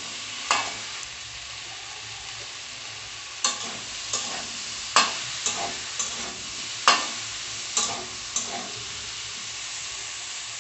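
Okra, potato and tomato sizzling in hot oil in a metal kadai while a metal spatula stirs them, scraping and knocking against the pan about ten times, the loudest knocks about five and seven seconds in.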